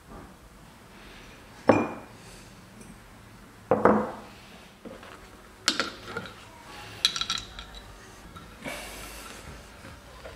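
Metal scooter-engine parts and tools being handled and set down on a workbench: about half a dozen knocks and clinks, some ringing briefly, with a short scrape near the end.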